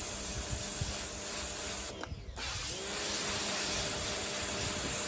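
Pressure washer firing a narrow 0-degree jet against a truck's painted body: a steady spray hiss over the pump's hum. About two seconds in the spray briefly cuts out, then the pump hum rises back up as the spray resumes.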